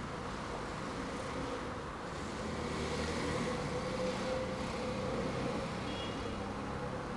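DF12 diesel locomotive running under power as it speeds up with a passenger train, a steady engine drone with a whine that swells in the middle and eases toward the end.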